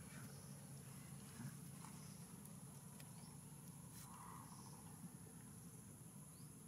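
Near silence: a faint steady low hum and a thin, steady high tone, with a few soft clicks.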